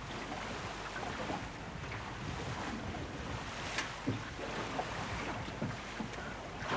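Wind and sea noise around a fishing trawler, with a few sharp knocks between about four and six seconds in.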